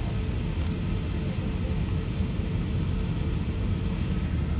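Steady cabin noise of a jet airliner in flight: an even, low engine and airflow rumble with a constant hiss above it and a faint steady tone.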